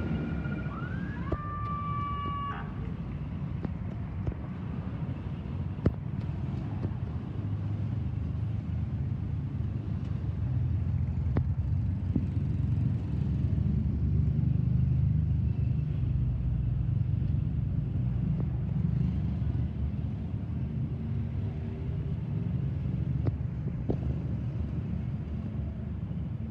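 Steady rumble of road traffic. About a second in, an emergency-vehicle siren gives a short rising whoop, holds its tone briefly and cuts off.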